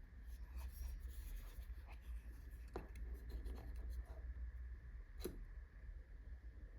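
Hands handling an earbud box and its packaging: light scratching and rubbing with scattered small clicks, two sharper clicks about three and five seconds in, over a steady low hum.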